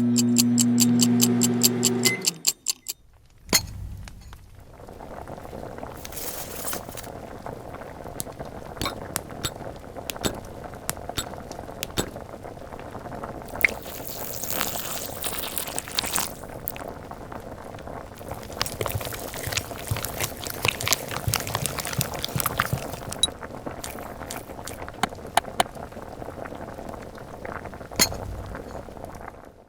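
Liquid bubbling steadily in a small pan, with frequent light clinks of tiny utensils and glassware, as in miniature cooking. A loud pitched sound about two seconds long comes first, then a short pause before the bubbling starts.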